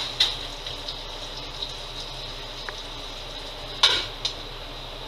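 Pork chops frying in a pan: a steady sizzling hiss, with a few sharp pops, the loudest about four seconds in.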